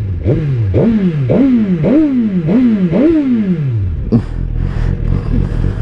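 2022 Suzuki GSX-R1000R inline-four engine revved about six times in quick succession, each blip rising sharply in pitch and falling back, then settling to idle about four seconds in.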